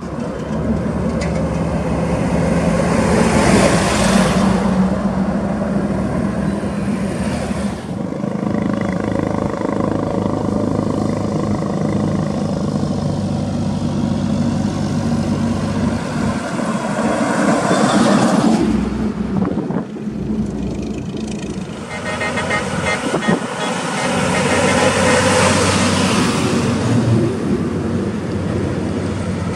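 Highway traffic of heavy diesel trucks passing close by one after another: a steady engine drone underneath, with tyre and engine noise swelling and fading as each truck goes past, a few seconds in, about two-thirds through and again near the end.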